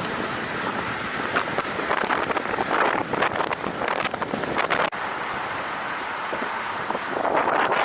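Wind buffeting the microphone of a camera riding on a road bike, a rough rushing noise. It gusts louder from about a second and a half in, drops out for an instant near five seconds, and swells again near the end.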